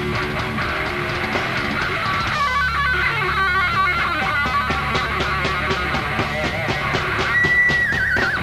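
A heavy metal band playing live, with distorted electric guitar, bass and drums. From about two seconds in a lead guitar plays a fast run of notes over a steady bass and regular drum hits. Near the end it holds one high note, then bends it down with a wobble.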